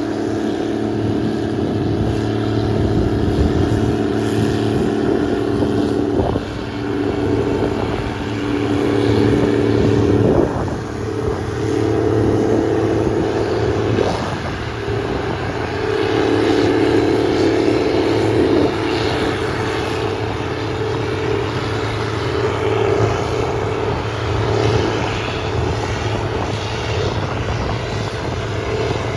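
Combine harvester running while cutting wheat: a steady diesel drone under whining machine tones that swell and shift in pitch every few seconds.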